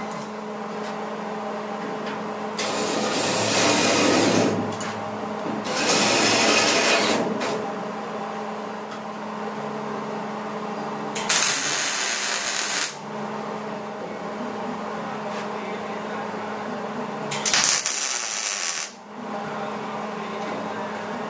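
MIG welder plug-welding a steel dogleg panel onto a VW bus cab: four bursts of arc noise about a second and a half each, with pauses between them over a steady low hum.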